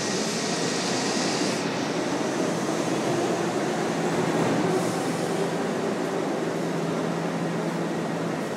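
Steady rumble and hiss of a New York City subway train running through an underground station, with a low steady hum throughout.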